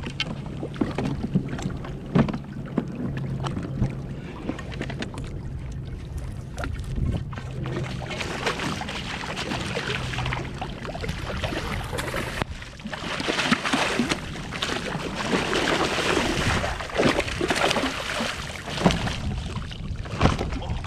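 Wind on the microphone and water splashing around a fishing kayak, with scattered knocks and clatters on the hull and gear; it grows louder and more splashy about halfway through.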